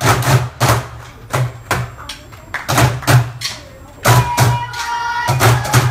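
A group of players striking drums together in unison, a rhythmic pattern of deep thuds and sharp hits with a short pause in the middle. About four seconds in, a held, pitched tone joins the drumming.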